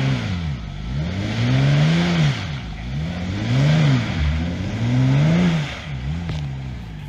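Jeep Wrangler engine revving hard in four or five repeated surges, each rising and falling, with tires spinning and churning in deep mud as the stuck Jeep tries to claw out of a mud hole.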